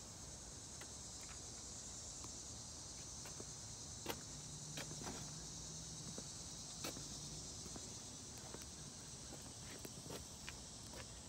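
Faint outdoor ambience: a steady high-pitched insect chorus, with scattered clicks of footsteps on asphalt.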